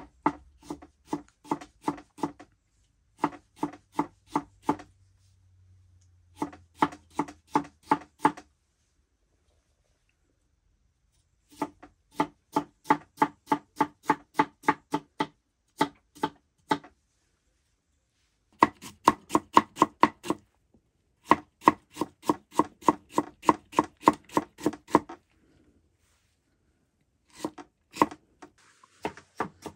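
Knife chopping food on a cutting board in runs of quick, even strokes, about five a second, with short pauses between the runs.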